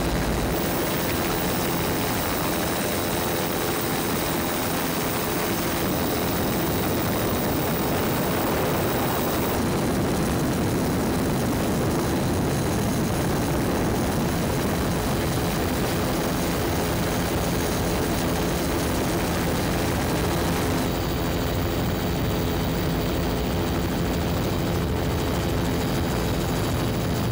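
Steady engine drone of the aircraft filming from above, a constant noise with a few steady hum tones. Its hiss changes abruptly about ten seconds in and again about twenty-one seconds in.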